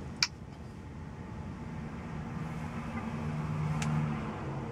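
A single sharp click about a quarter second in as the in-cab touchscreen's confirm button is tapped, over a low steady hum that grows louder past the middle and eases off near the end.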